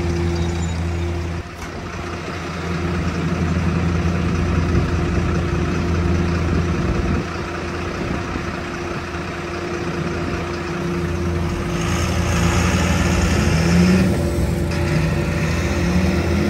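Diesel engine of a 2006 MAN 18-250 truck idling steadily, then revving up in a couple of rising pulls near the end as the truck moves off.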